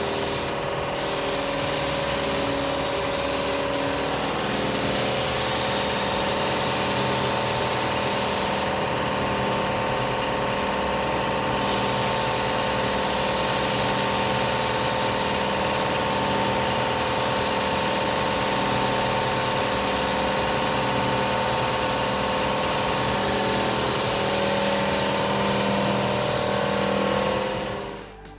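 Paint spray gun spraying white paint onto a car's interior roof: a steady loud hiss over a constant motor hum. The spray eases off for about three seconds near the middle, then resumes until it cuts off near the end.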